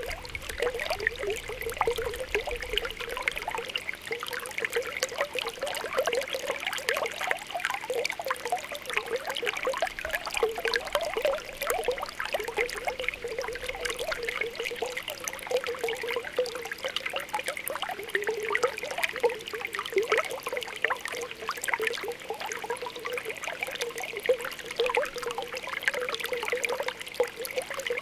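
Spring water welling up from the ground, a steady stream of small irregular popping and bubbling sounds.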